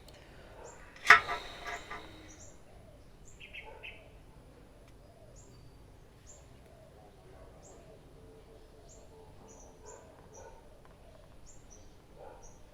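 A sharp click about a second in, followed by a brief rattle for under a second. Short high bird chirps repeat every second or so in the background.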